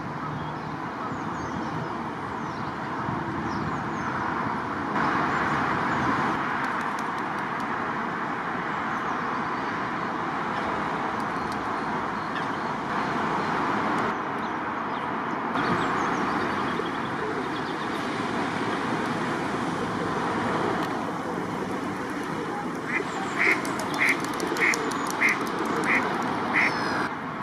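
A duck quacking in an even series of about seven quacks near the end, over a steady outdoor background hiss.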